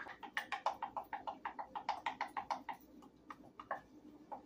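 Rapid, rhythmic clicking of a mixing utensil against a glass measuring cup as eggs are beaten into softened cream cheese by hand, about six strokes a second, turning slower and more scattered after about three seconds.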